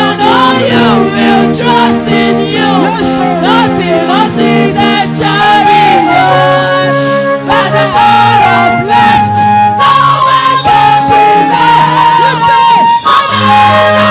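Church worship music: voices singing over sustained chords.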